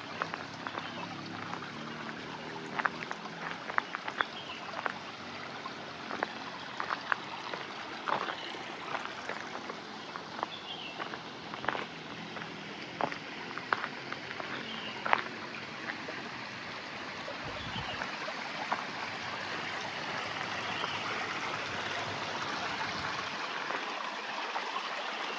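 Running water of a stream or channel, a steady rush that grows louder in the second half, with scattered sharp clicks over it.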